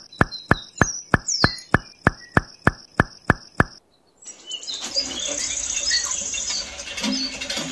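A quick, even run of loud clicks, about three and a half a second, over a high steady tone, stopping suddenly about 3.7 seconds in. After a short gap, birds chirp over a steady background hiss.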